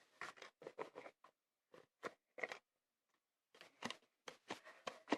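Slime being squished and poked by hand, giving faint, irregular soft clicks and pops, with a short pause about three seconds in.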